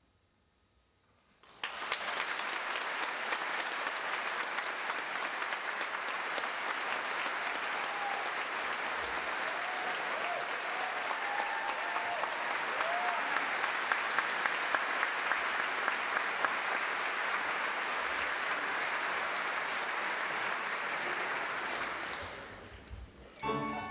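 Concert-hall audience applauding: it breaks out suddenly after a second or two of near silence, holds steady, and dies away near the end as instrumental music starts.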